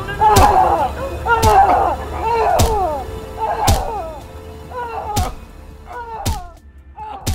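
Heavy blows struck at a steady pace, about one a second. Each hit is followed by a short pitched sound that slides downward, and the blows fade gradually toward the end.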